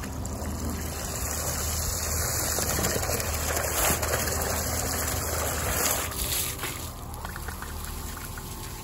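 Water driven by a submersible electric water pump gushing from its outlet hose and splashing down as spray onto wet ground and leaves, a steady dense splashing that eases about six seconds in.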